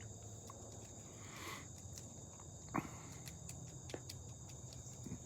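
A steady, high-pitched chorus of insects trilling without a break, with two short clicks a little past the middle.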